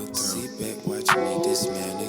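Instrumental outro of an R&B song: sustained chords with a few percussive hits, just before it fades out.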